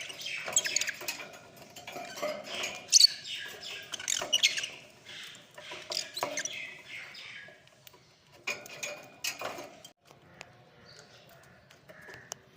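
Lovebirds chirping and chattering in quick, high calls, busiest in the first half with a sharp loud call about three seconds in, then thinning out to a few scattered chirps and clicks.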